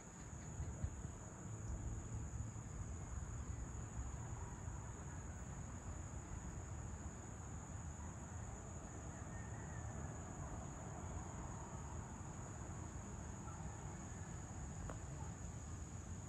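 Crickets trilling in a steady, unbroken high-pitched chorus, over a low background rumble.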